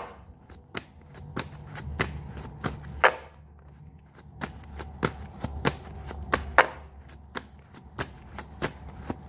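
Tarot cards being shuffled by hand: a run of sharp, irregular taps and flicks, about three a second, with a few longer swishes of sliding cards.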